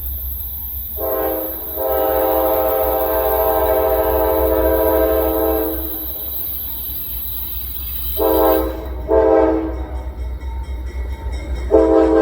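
CSX diesel locomotive's multi-chime air horn sounding a short blast, then a long blast of about four seconds, then three short blasts near the end, over a steady low rumble.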